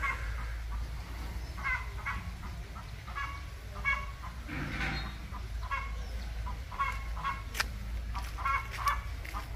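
Chickens clucking: short calls come and go throughout, over a low steady rumble.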